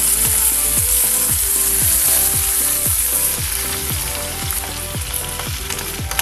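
Boiled mung beans sizzling in a hot pan with sautéed garlic and onions. The sizzle is loud at first and eases off toward the end.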